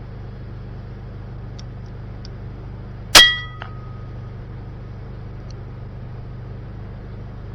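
A single shot from a moderated RTI Arms P3 PCP air rifle: one sharp crack about three seconds in with a brief metallic ring that dies away within half a second.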